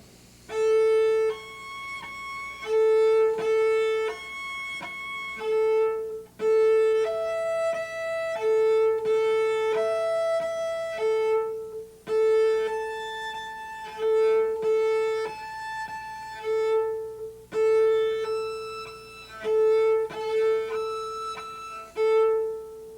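Cello playing a series of bowed natural harmonics on the A string, clear, pure high notes one after another. The same few pitches return in turn, the octave harmonic most often and others a fifth, two octaves and a major third above, showing that the harmonics repeat in mirror fashion on either side of the string's midpoint.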